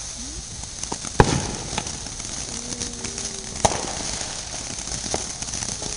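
Ground fountain firework spraying sparks, a steady hiss with scattered crackling. Two sharp bangs stand out, about a second in and again about halfway through.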